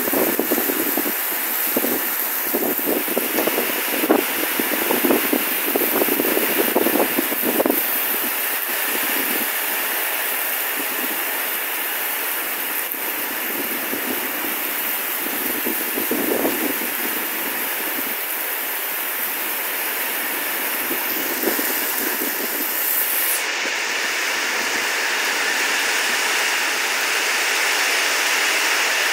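Thunderstorm rain and wind: a steady rushing hiss, with rougher crackling surges over the first eight seconds and again briefly about halfway through.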